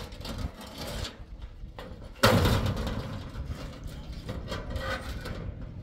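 A sudden loud bang or clatter about two seconds in, trailing off over about a second, amid scattered handling noises.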